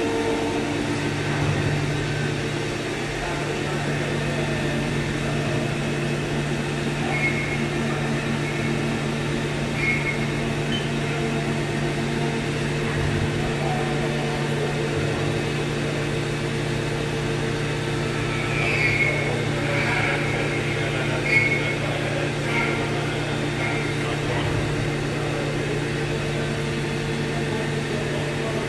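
Doosan VC 630/5AX five-axis CNC vertical machining center running and milling: a steady machine hum with several steady tones, and a few short higher-pitched sounds scattered through it, mostly in the second half.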